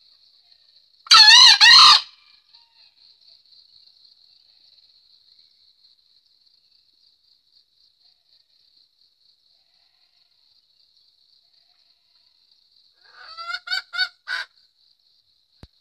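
Green junglefowl rooster giving a loud, shrill two-note crow about a second in, and near the end a short series of quieter rising calls finishing on a louder note. A cricket trills steadily throughout.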